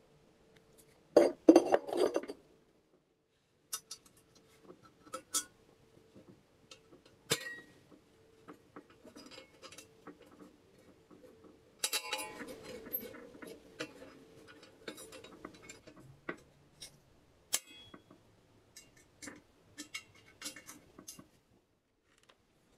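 Firebricks being set into a steel forge firepot: a few loud knocks of brick against brick and steel about a second in. Then scattered small metal clinks, clicks and scrapes as the spring latch of the ash-dump gate under the firepot is handled.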